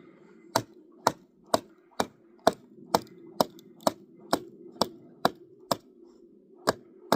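Kindling being chopped, a blade striking wood in quick, regular, sharp chops, about two a second. There are some fourteen strikes, with one brief pause near the end, over a faint steady low hum.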